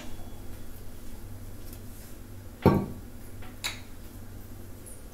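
Quiet kitchen background with a faint steady low hum, broken by one sharp tap about two and a half seconds in and a softer tick about a second later.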